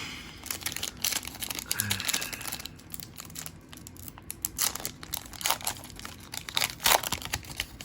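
A plastic trading-card pack wrapper being torn open and crinkled by hand, with a run of irregular crackles and sharp crinkles that peak near the end.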